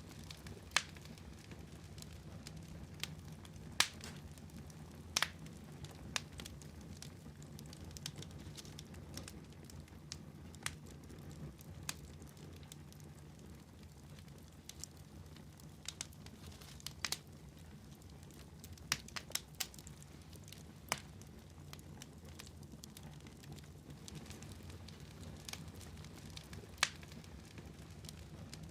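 Wood fire crackling in a fireplace: sharp, irregular pops and snaps every few seconds over a steady low rumble.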